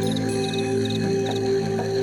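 Slow new-age meditation music of sustained, held tones. Short high chirps come in small clusters about four times over it, part of a rainforest soundscape.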